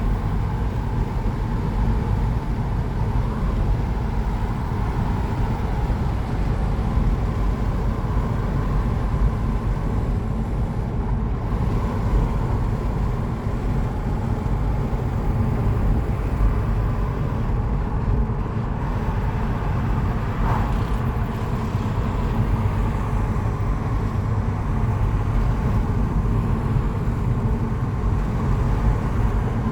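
Car driving: a steady low rumble of engine and road noise that holds even throughout.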